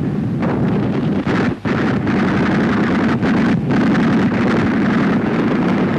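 Steady, dense rumbling noise of a wartime newsreel battle soundtrack, with no single shot standing out. It drops out for an instant about one and a half seconds in and again past three and a half seconds.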